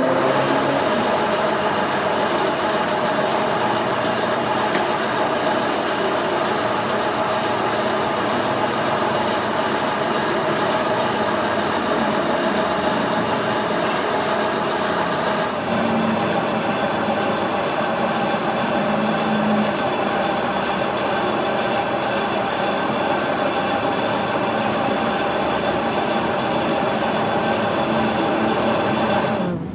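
Metal lathe running steadily, a dense mechanical hum and whine made of many steady pitches, with a slight change in its higher tones about halfway through.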